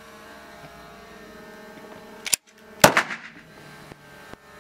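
A sharp metallic click from a pistol being handled, then about half a second later a single loud pistol shot that rings out briefly.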